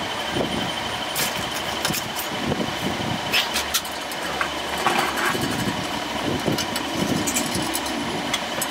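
Steady mechanical running noise of workshop machinery, with a few sharp metal clicks from a steel rod being worked into a cast-iron sewing machine head.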